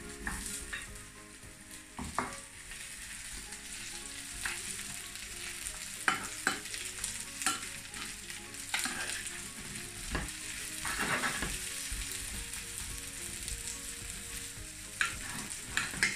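Sliced yellow squash frying in butter and grapeseed oil in a skillet, a steady sizzle. A spatula stirs and knocks against the pan every second or two, with one longer scrape about eleven seconds in.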